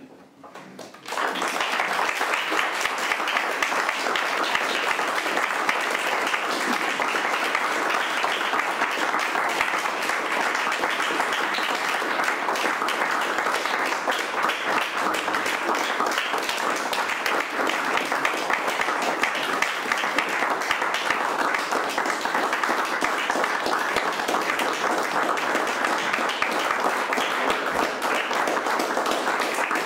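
Audience applause, breaking out about a second in and continuing steadily.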